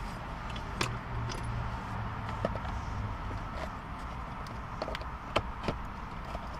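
Scattered light clicks and knocks of tools and plastic interior trim being handled and pried at in a car's center console, over a steady low hum.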